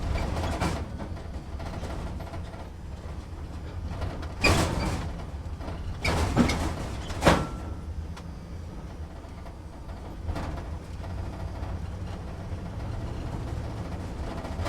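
Inside a truck's cabin on a slow drive: the engine and road make a steady low rumble, and the cab shakes and rattles, with sharp jolts a few times near the middle.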